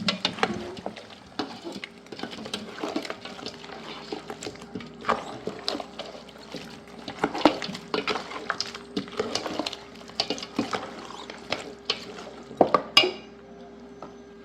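Metal spoon stirring and scraping in a cooking pot of chicken stew with palm oil, giving irregular clinks and scrapes. The loudest knock comes about thirteen seconds in, over a faint steady hum.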